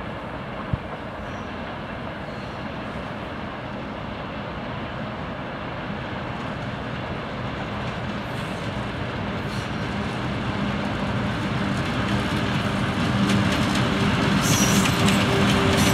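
A 2TE116 twin-section diesel locomotive approaching with a freight train: a steady diesel engine rumble and rail noise growing louder as it nears, with the engine's hum coming through clearly in the second half. A single sharp click sounds about a second in.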